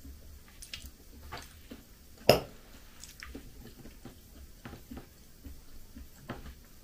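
Metal fork tapping and scraping on a china plate while eating, with small clicks throughout and one sharp, loud clink a little over two seconds in.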